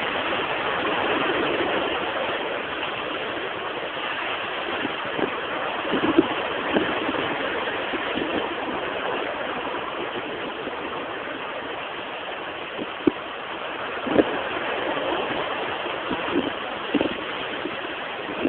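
Sea washing against the shore in a steady rush, broken by a few short thumps, the sharpest about six, thirteen and fourteen seconds in.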